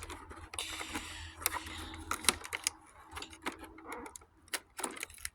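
Irregular clicks, taps and crinkling of cardboard and plastic packaging as a toy advent calendar door is opened and a small plastic toy is taken out.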